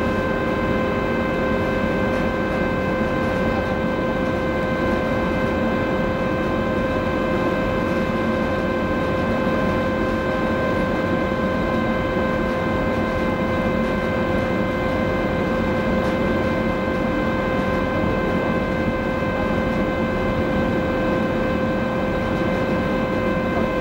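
Silja Symphony cruise ferry's machinery droning steadily as the ship gets under way: a low rumble with a constant whine and its overtones on top.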